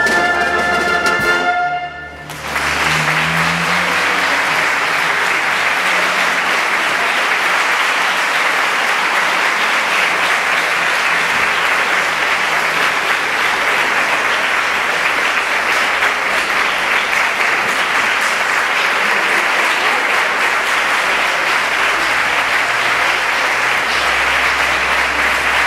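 A wind band's final chord ends about two seconds in, and audience applause follows, steady for the rest.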